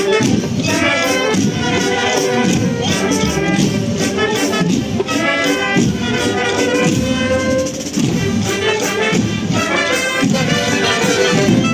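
Tamborrada drum corps beating snare drums in a steady marching rhythm under a brass band playing a march tune.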